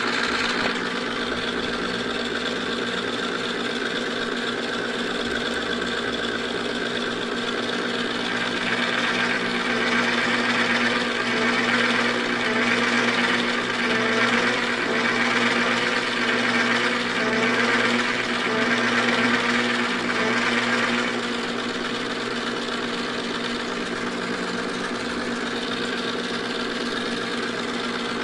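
Manrod MR 301 bench lathe running with a steady motor hum while the tool cuts the workpiece. The cutting grows louder and harsher for about ten seconds in the middle, then eases back to the plain running hum.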